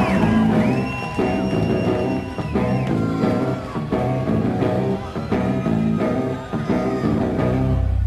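Live heavy rock band playing: distorted guitars and bass over a repeating low riff with drums, and a sliding guitar line on top.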